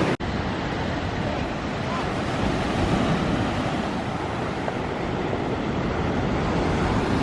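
Steady rush of ocean surf on a beach, mixed with wind on the microphone. The sound drops out for an instant near the start.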